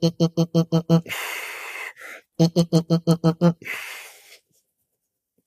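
A man's vocal sounds made while channeling: two quick runs of short rapid vocal pulses, about eight a second, each followed by a long breathy exhale, stopping about four and a half seconds in.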